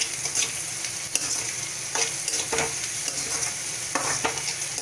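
Chopped onions frying in hot oil in a metal kadhai, sizzling steadily, while a spatula stirs them and scrapes against the pan several times.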